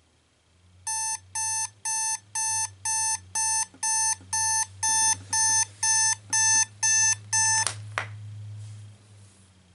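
Cinderella digital alarm clock's alarm going off: short high electronic beeps, about two a second, getting a little louder, until a click about eight seconds in stops it as the button on top is pressed.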